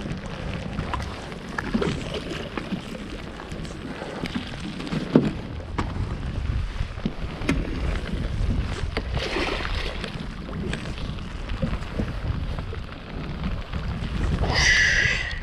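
Wind buffeting the microphone in a low, steady rumble, with scattered knocks and handling noise on a boat deck. Near the end there is a brief, louder, higher-pitched burst.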